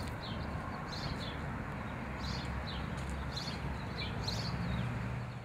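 Small birds chirping: short high chirps, one or two a second, over a steady low outdoor rumble.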